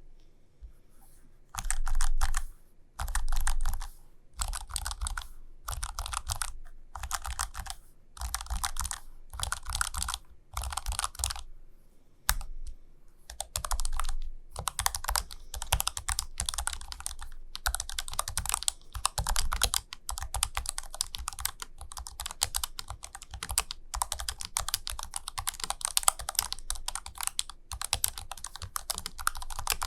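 Typing on an ASUS ROG Falchion RX Low Profile keyboard: rapid keystroke clicks in short bursts with brief pauses, then continuous typing from a little before halfway.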